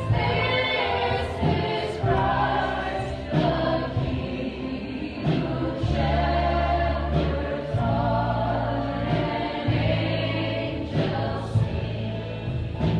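A woman singing a song through a handheld microphone, with electronic keyboard accompaniment: held sung notes in short phrases over sustained low chords.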